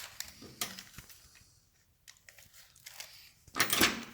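Hands working over the motorcycle clutch: a few light clicks, then a brief louder rustle about three and a half seconds in.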